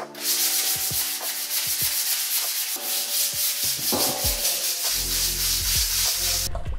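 Sandpaper worked back and forth by hand over a welded steel frame, a run of quick rubbing strokes that stops shortly before the end, preparing the metal for primer.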